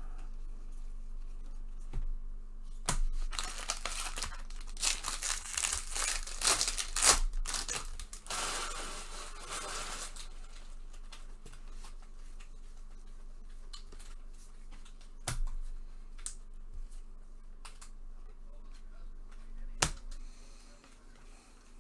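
A Bowman baseball card pack's wrapper being torn open and crinkled: a rush of tearing and rustling from about three to ten seconds in, followed by scattered light clicks and taps.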